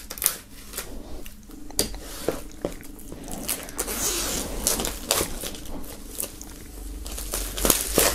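Clear plastic shrink-wrap on an LP sleeve being slit along the edge with a knife, then peeled off the cardboard, crinkling and crackling irregularly.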